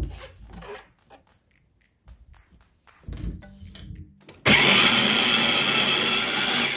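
A sharp knock of a wooden spoon against a mesh strainer, a few light knocks as the motor top is set on an Oster mini food chopper, then about halfway through the chopper's motor runs with a loud steady whir for a little over two seconds, blending cooked lentils.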